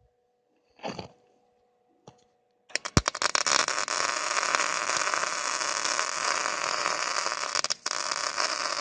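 Arc welding: the arc sputters on with a few sharp pops about three seconds in, then crackles steadily as a long weld bead is run, with a brief break near the end.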